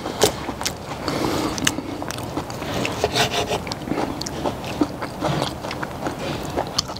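Chewing steak, mixed with the scrape of a knife cutting cooked ribeye on a wooden board and the clicks of metal tongs picking up pieces.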